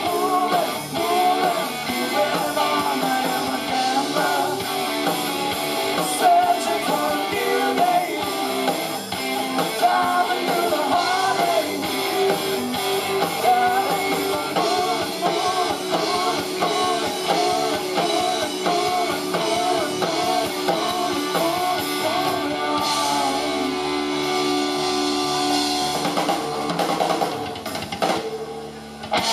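Live rock band playing: electric guitars, bass guitar and drum kit with a singer, heard through the stage PA. The music dips briefly in loudness near the end.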